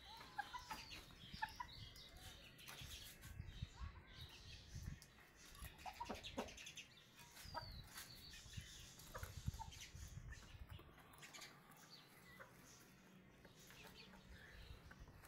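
Ganoi fighting chickens clucking faintly now and then, with a few light taps.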